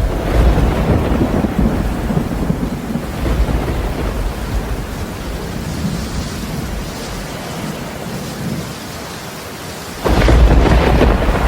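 Rumbling thunder over steady rain, easing off through most of the stretch, then growing sharply louder about ten seconds in.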